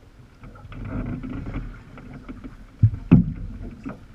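Small waves lapping and slapping against a sea kayak's hull, with two sharp, loud splashes about three seconds in.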